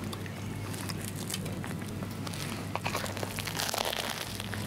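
Handling and biting into a large grilled sandwich on crusty grain bread: scattered crackles as it is gripped, then a crunching bite of the toasted crust about three and a half seconds in. A steady low hum runs underneath.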